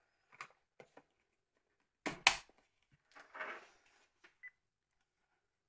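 Handling of a Nokia 1610 mobile phone: a few light plastic clicks, then a sharp double snap as the back cover is pressed home, a brief rustling scrape as the phone is turned over, and a short high beep near the end.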